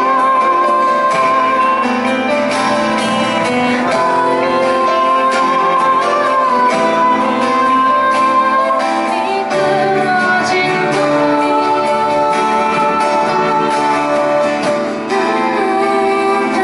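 A small band playing a song live, with acoustic guitar, electric bass, keyboard and drums, and a woman singing long held notes over it.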